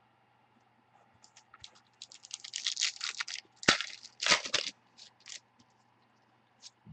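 Trading cards and their packaging being handled: a run of sharp crinkles, snaps and clicks, densest in the middle, with the opening at first quiet.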